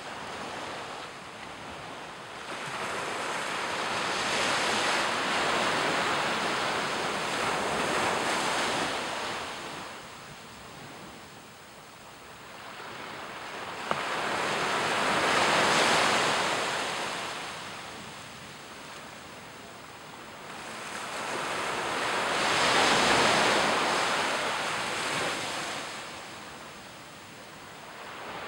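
Small ocean waves breaking and washing up a sandy beach, the surf swelling and falling back three times.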